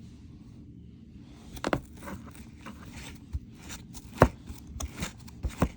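Plastic housing parts of a Bissell Power Force Helix upright vacuum being handled and worked loose from a clip: light scraping and several sharp plastic clicks and knocks, the loudest about four seconds in.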